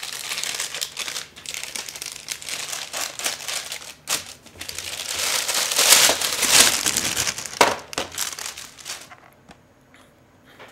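Plastic shrink wrap being torn and peeled off a boxed electronics kit, crinkling and crackling. It is loudest about six seconds in and dies away near the end as the wrap comes off.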